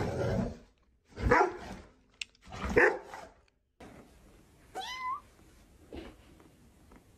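A small dog barking twice, about a second apart, in alarm at a picture of itself that frightens it. Later comes one short, rising high cry.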